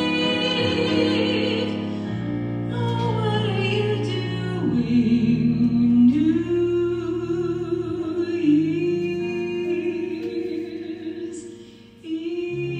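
A female soloist singing long, held notes with vibrato over a symphony orchestra. The music thins out briefly about a second before the end, then the orchestra comes back in.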